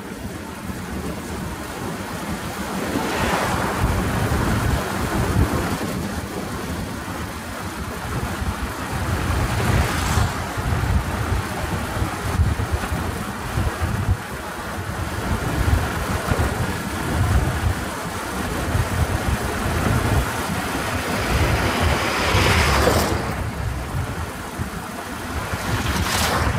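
Riding a motorcycle at road speed: wind buffeting the microphone over a steady rumble of engine and road noise. Oncoming vehicles rush past several times, the last just before the end.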